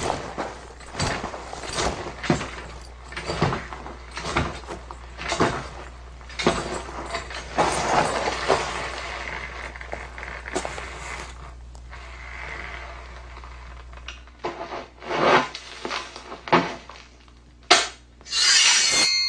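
An irregular run of sharp knocks, cracks and crunching clatter, with a denser crunchy stretch in the middle and a loud rushing burst near the end, over a steady low hum.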